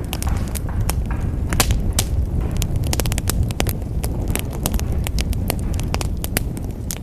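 Wood fire burning in a fireplace: a steady low roar of flames with frequent, irregular sharp crackles and pops.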